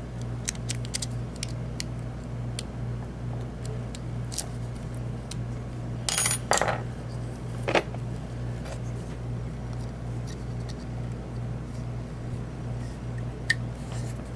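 Small metal clicks and clinks of pick and tools working a mortise lock cylinder, scattered throughout, with a few louder ringing clinks about six to eight seconds in.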